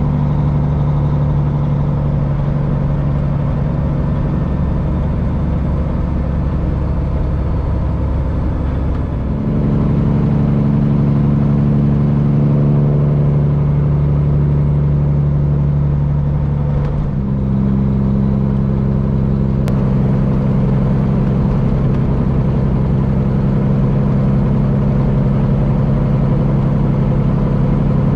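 Peterbilt semi's straight-piped Cummins diesel running steadily under way. Twice, about a third of the way in and again just past halfway, the note dips briefly and comes back at a new pitch.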